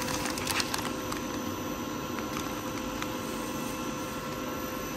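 Steady mechanical hum with several held tones, from machinery running in the room. About half a second in come a few brief crinkles of plastic as a plastic-wrapped connecting rod is set down on a digital scale.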